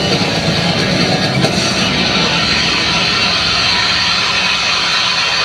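Rock music with guitar played over a domed stadium's PA system and echoing heavily. The low beat thins out after about two seconds, leaving a steady wash of reverberant sound.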